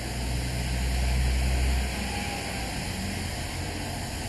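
Railway locomotive at the head of a stationary train giving a steady hiss over a low rumble; the rumble swells during the first two seconds and then eases.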